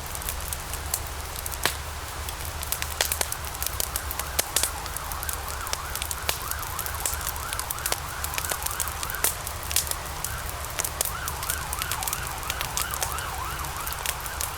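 Fire crackling and popping over a steady low rumble. From about four seconds in, a faint high tone warbles rapidly up and down, about two to three swings a second.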